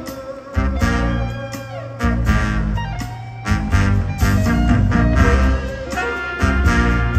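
Live jazz band playing an instrumental passage without vocals, in punchy stop-start accents over a heavy bass line.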